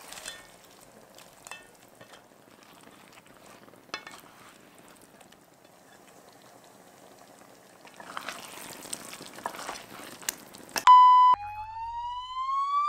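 Sauce bubbling in a wok, with a few soft clicks of a utensil against the pan and a louder hiss of simmering after about eight seconds. Near the end, a short electronic beep followed by a smoothly rising whistle-like tone from an animation sound effect, the loudest part.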